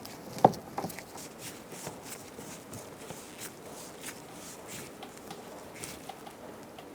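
Long screws being driven by hand into the door panel under the exterior door handle: a sharp click about half a second in, a couple of smaller clicks right after, then faint, irregular ticks and rustles of tool and plastic trim.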